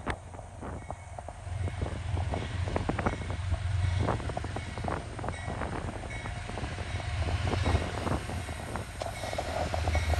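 Amtrak P32AC-DM diesel locomotive pulling a passenger train out of the station, its low engine rumble building as it gathers speed, with many short clicks and knocks from the moving train. Wind noise on the microphone.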